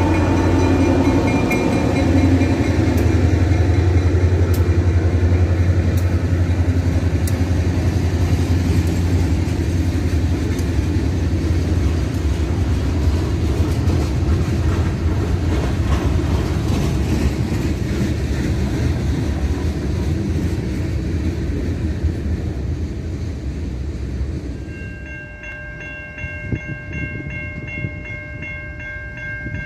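Diesel freight locomotives pass close by with a heavy engine rumble, then freight cars roll past with clicking wheels, the sound slowly fading. About 25 seconds in it changes suddenly to a railroad grade-crossing warning bell ringing steadily.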